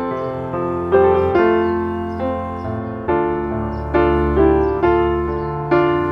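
Background piano music, slow, with notes and chords struck about once a second.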